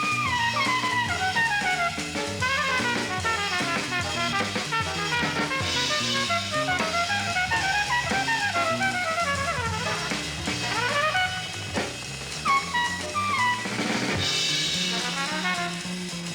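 Jazz music: a saxophone line over a drum kit with cymbal washes and a low line moving note by note underneath.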